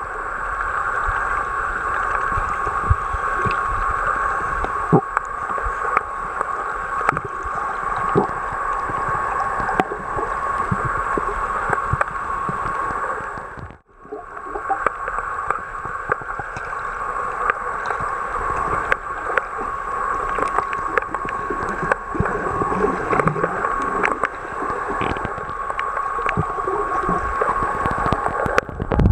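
Underwater sound picked up through the sealed body of a waterproof compact camera: a steady, muffled wash of moving water, speckled with many small clicks and knocks, with a faint steady whine running through it. The sound cuts out for an instant about halfway through.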